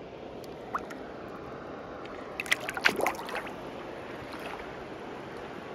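River water running steadily, with a short burst of sharper sounds about two and a half seconds in.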